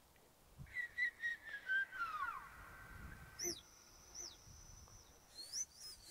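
Recorded attention-getting whistles played from a Marshall portable speaker: a run of short whistled notes sliding down in pitch, then higher swooping whistles with a held high note in the middle, and another rising swoop near the end.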